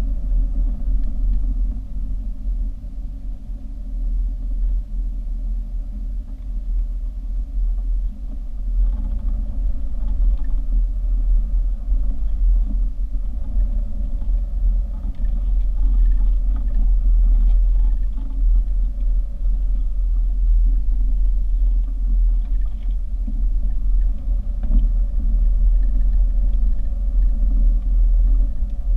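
A car driving, a steady low engine and road rumble that grows a little louder about nine seconds in.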